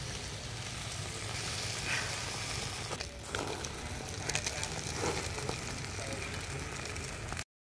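Pork sizzling on a wire grill over a charcoal fire, a steady sizzle with scattered small pops and crackles. It cuts off suddenly near the end.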